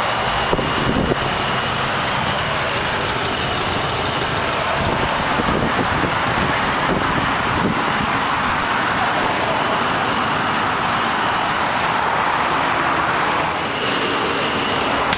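2006 Chevrolet Colorado's Vortec 2800 2.8-litre inline-four engine idling steadily, heard from over the open engine bay.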